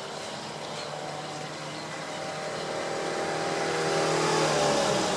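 A vehicle's engine drawing nearer, its hum growing louder, then dropping in pitch as it passes close by near the end.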